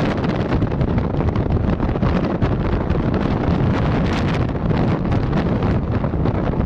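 Loud, steady wind noise buffeting the microphone, a dense low rumble with irregular gusty flutters.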